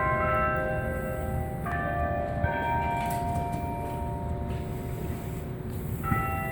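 University tower bells chiming the noon hour: a few bell strokes at uneven intervals, each at a different pitch and ringing on into the next, with a pause of several seconds before the last one. A steady low rumble of background noise lies underneath.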